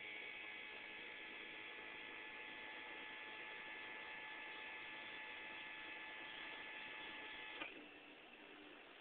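Electric trolling motor running out of the water with a steady hum and whine, cutting off abruptly about three-quarters of the way through and leaving a fainter hum.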